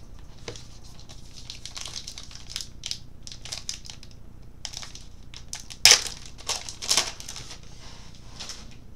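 Baseball card pack wrappers being torn open and crinkled by hand, in irregular crackling bursts, the loudest about six and seven seconds in.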